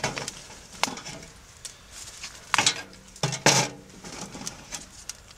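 Dry twigs snapping as they are broken by hand and pushed into the door of a small titanium wood stove. There are several sharp snaps, the loudest about two and a half and three and a half seconds in.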